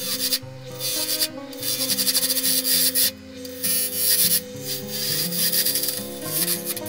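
A turning tool cutting into a spinning wooden blank on a mini wood lathe, making a scraping hiss that breaks off briefly about three times. Background music plays underneath.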